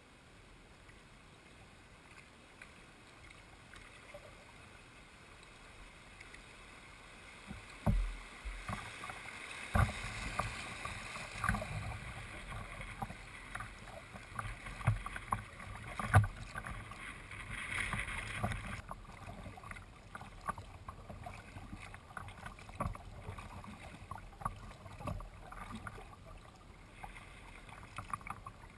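Kayak paddling: water splashing and sloshing around the boat, with irregular knocks against the hull. It starts quiet, picks up about a quarter of the way in, and the splashing drops away abruptly about two-thirds through, leaving fainter scattered taps.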